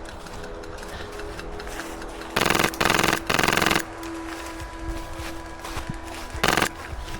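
Airsoft guns firing on full auto: three quick bursts of rapid shots close together about two and a half seconds in, then one short burst near the end.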